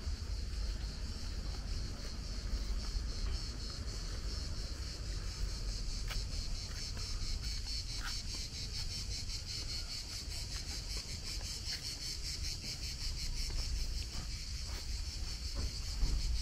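Cicadas singing in a steady, fast-pulsing high buzz that swells louder midway, over a low rumble.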